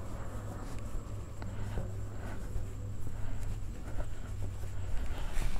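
Microfibre cloth rubbing and wiping over a motorcycle's chrome frame and rear shock mount, with a few small ticks, over a low steady rumble.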